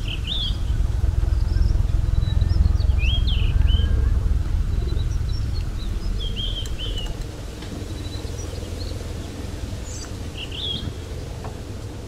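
Birds chirping in short calls every few seconds over a steady low rumble of wind on the microphone and tyres rolling on a paved path while riding a bicycle. The rumble is louder in the first half.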